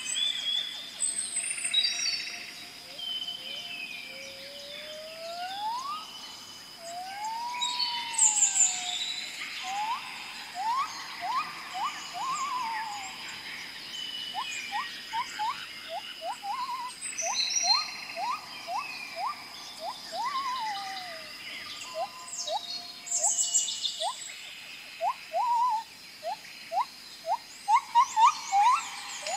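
Many birds chirping and whistling, with quick rising whistled notes repeated in runs, over a steady high-pitched hum.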